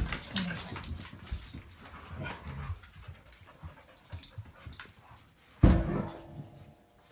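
A dog panting close to the microphone; about five and a half seconds in, a sudden louder noise followed by a short, steady whine.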